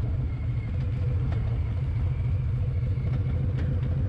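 Harley-Davidson motorcycle's V-twin engine running with a steady low rumble.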